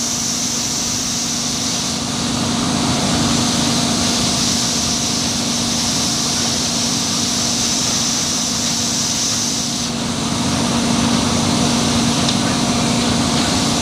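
Palm oil mill threshing station machinery running: a loud, steady industrial drone with a constant low hum and a hiss over it.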